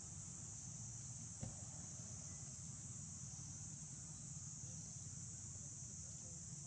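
Steady high-pitched insect chorus, like cicadas or crickets, over a low steady hum, with a single sharp tick about a second and a half in.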